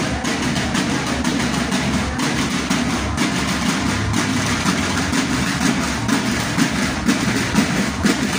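Marching snare drums of a drum-and-bugle corps playing a continuous marching cadence, with an accented beat about once a second.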